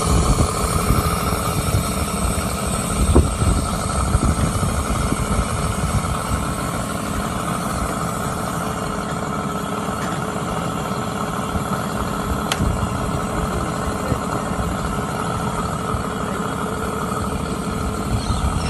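Homemade 150cc V12 petrol engine, modelled on the Tiger tank's Maybach V12, running steadily, with a single sharp click about twelve seconds in.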